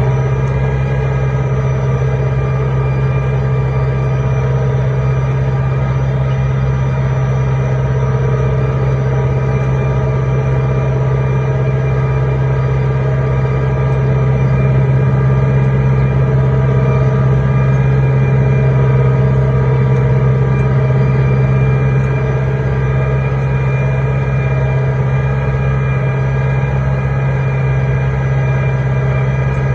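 Tractor engine running steadily under load while pulling a soil-working implement, one even pitch with no breaks.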